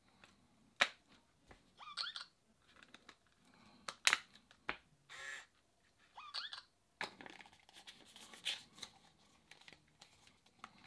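Hard plastic modules of a Clicbot modular robot handled and clicked together, with scattered sharp clicks and knocks and a brief rubbing sound. Twice the robot gives a short electronic chirp that bends up and down in pitch.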